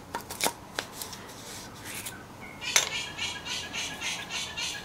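Milwaukee M18 drill clutch being turned by hand at the output shaft: its steel ball detents click as they lift out of their seats and the clutch slips. A few loose metal clicks come first, then from about halfway a steady run of about four clicks a second.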